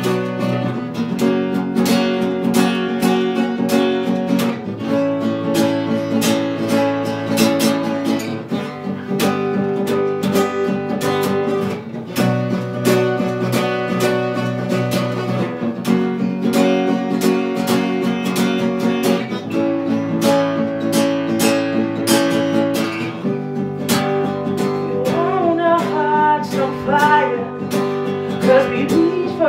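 Acoustic guitar strummed in a steady rhythm, the chord changing every few seconds. A wordless vocal line comes in over it near the end.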